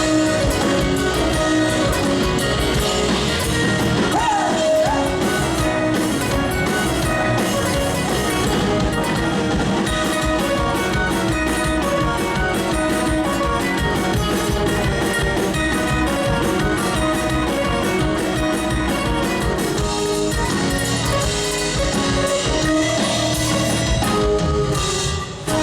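Live rock band playing a song, with electric guitars and drum kit, at a steady full level.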